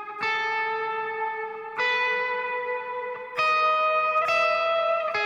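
Thomson TL-1 Telecaster-style electric guitar playing four long, ringing chords, a new one about every one and a half seconds, in a clean, sustained tone suited to worship music.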